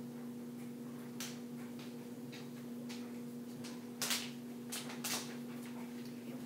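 Plastic water bottle being handled and flipped: scattered light taps and clicks, with a few louder knocks about four and five seconds in, over a steady electrical hum.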